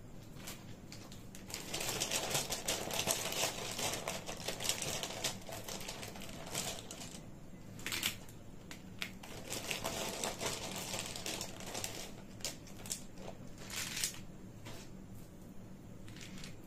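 Plastic alphabet letters clattering as they are handled and dropped onto the table, a dense rattle of small clicks in several bouts. The loudest bout is about two to four seconds in, with further bursts near the middle and near the end.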